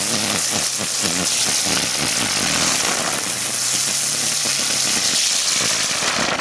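Weco 'Dicker Brummer' ground spinner firework burning: a loud, steady hiss of spraying sparks with a low buzzing hum underneath.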